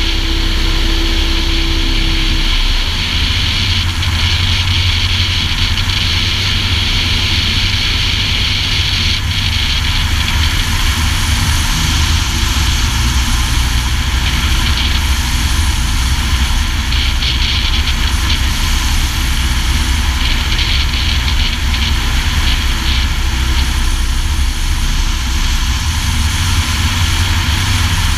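Light aircraft engine and propeller of a STOL Cessna 150 with a 150-horsepower conversion, running steadily and loudly with a deep hum and an airy hiss. A steady tone sits over it for the first two seconds or so.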